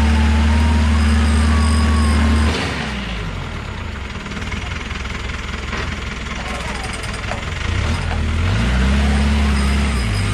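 Off-road 4x4 engine revved and held at high revs, then let off about two and a half seconds in. The engine runs lower and quieter for several seconds, then revs up again about eight and a half seconds in and holds, with a couple of small dips near the end.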